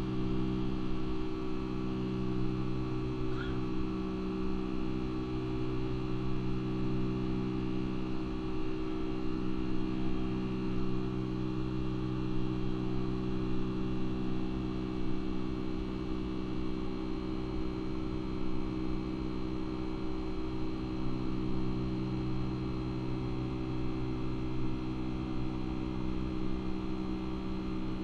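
Boeing 757-200's turbofan engines running at climb power just after takeoff: a steady drone with several held low tones, heard inside the cabin beside the wing.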